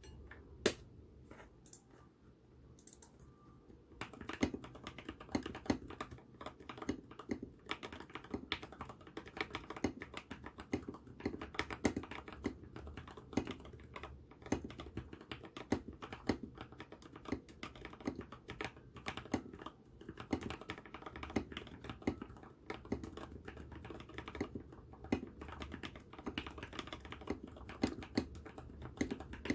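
Typing on a Nullbits Nibble 65 mechanical keyboard with Durock Lavender tactile switches lubed with Krytox 205g0, an FR4 plate and PBT SA keycaps. A few single key presses come first, then steady, fast typing from about four seconds in.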